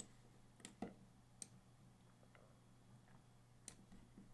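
Computer mouse clicking: about five sharp, sparse clicks, three of them in the first second and a half and one more later on, over a faint steady low hum.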